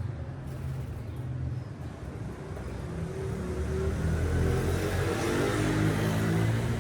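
A vehicle engine running with a low rumble, growing louder from about halfway through, as if passing close by.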